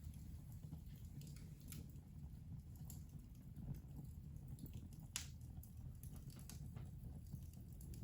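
Wood fire crackling in an open fireplace: irregular small pops and snaps over a low steady rumble, with one sharper pop about five seconds in.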